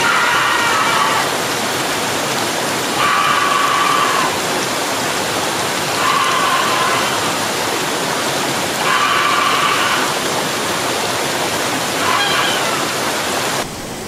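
Waterfall rushing steadily, with a high-pitched human scream about every three seconds, five in all, each about a second long and partly drowned by the water.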